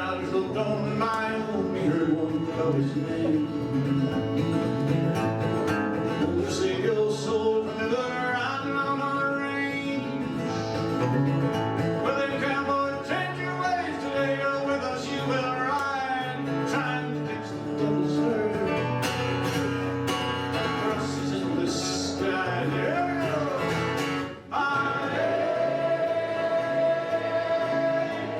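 A man singing a western song to guitar accompaniment. About 24 seconds in the music breaks off briefly, then a long note is held.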